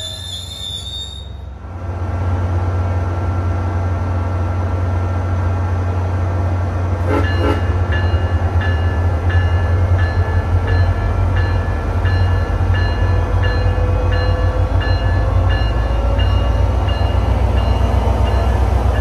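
SunRail commuter train's diesel engine running loud and low, its note slowly rising as it works harder. A bell rings steadily, about once every three quarters of a second, with a short double sound about seven seconds in.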